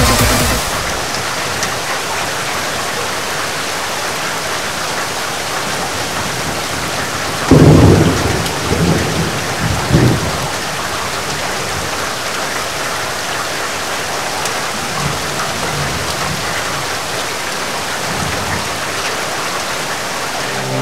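Heavy rain pouring steadily. About seven seconds in comes a loud clap of thunder, the loudest sound here, which rumbles on for a few seconds with a second peak.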